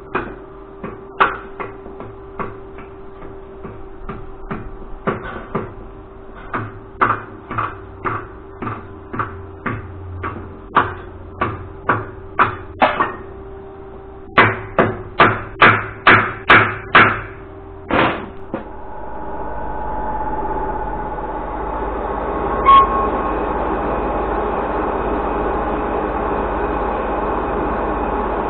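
Hand hammer striking red-hot steel, blows at about two a second, with a quicker run of louder blows near the middle. After that a metal lathe runs steadily.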